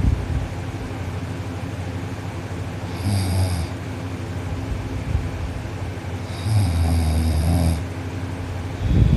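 A teenage boy snoring loudly in his sleep, lying on his back with his mouth closed. The snores come about every three seconds, the third one longer than the rest, over a steady background hum.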